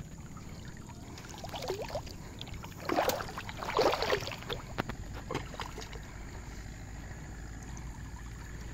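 Water splashing and dripping as a wet cast net is hauled up out of shallow muddy water, with a louder run of splashing about three to four and a half seconds in.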